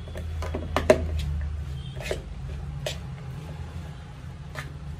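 Metal spoon stirring a moist chopped-vegetable and minced-meat stuffing in a plastic bowl, with irregular sharp taps and scrapes of the spoon against the bowl, the loudest about a second in. A steady low hum runs underneath.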